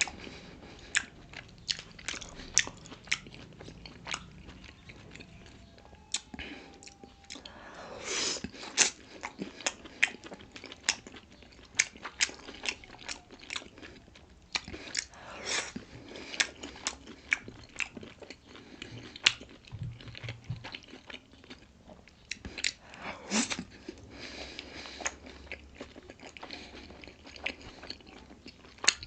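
Close-miked chewing and biting of pork momo dumplings: wet, smacking mouth clicks going on throughout, with a few louder slurping or biting sounds.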